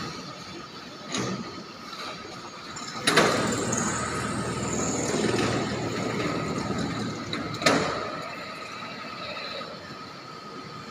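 Machinery running in a timber workshop: a steady high whine throughout, with a loud stretch of machine noise starting with a knock about three seconds in and ending with another knock some four and a half seconds later.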